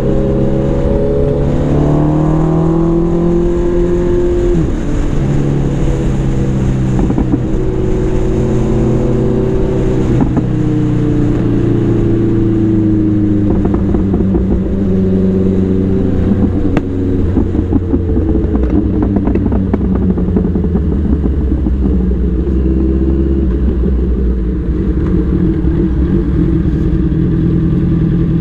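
Big-bike motorcycle engine running while riding, its pitch rising and falling repeatedly as the bike speeds up and slows down.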